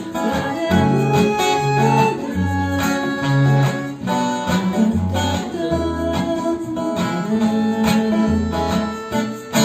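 Instrumental break of a blues-style song: acoustic guitar playing over a walking bass line, with other sustained instrument notes above.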